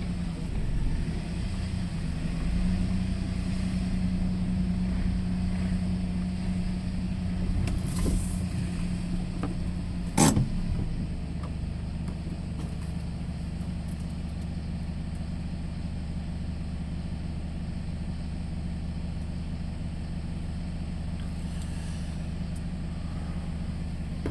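Vehicle engine running steadily with a low hum, a sharp click about ten seconds in, after which the hum settles lower and more even.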